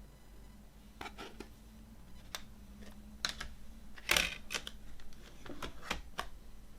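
CD case and its contents handled: a string of light plastic clicks and taps, irregularly spaced, with one louder, longer rattle a little past the middle.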